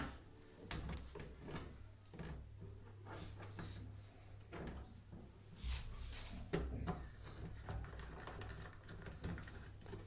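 Scattered clicks, knocks and rattles of a washing machine's drain pump being handled and fitted back into place, with the sharpest knocks a little past halfway, over a steady low hum.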